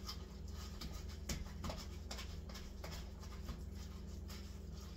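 A fork mashing chicken salad in a plastic container: irregular scrapes and clicks of the tines against the plastic, a few a second.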